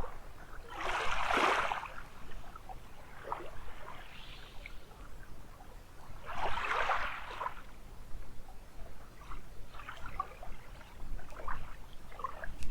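Small waves washing up on a sandy beach, two swells of surf about five seconds apart, with faint scattered clicks between them and a steady low rumble of wind on the microphone.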